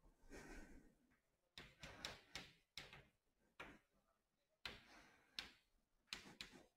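Faint chalk tapping and scratching on a blackboard while words and numbers are written, a string of short strokes in irregular clusters with brief pauses between.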